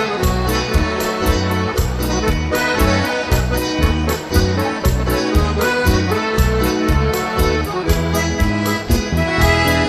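Instrumental chamamé: a piano accordion plays a melody over a bass line and a steady beat, with no singing.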